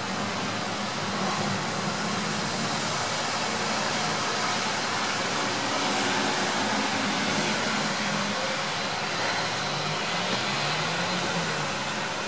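Steady hiss of light rain falling. A faint low hum runs underneath and rises and falls near the end.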